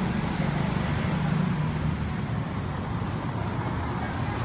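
Street traffic noise: a motor vehicle engine running steadily, a low hum over a general roadway rumble.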